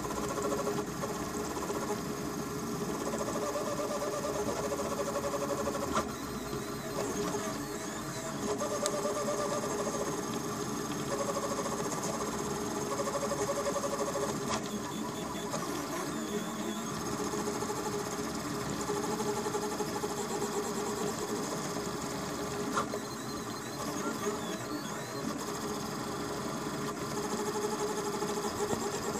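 Delta 3D printer's NEMA 17 stepper motors whining and buzzing as the print head moves at high speed printing a calibration cube. Several tones sound together and change pitch every second or so as the moves change.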